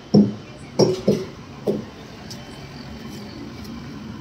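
Four dull knocks in under two seconds, a rod striking the truck's tyres to check whether they are low on air.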